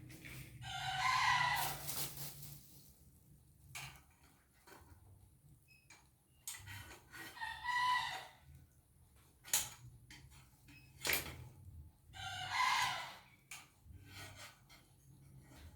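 A rooster crowing three times, each crow about two seconds long and spaced about five to six seconds apart, with a few sharp clicks or knocks between the crows.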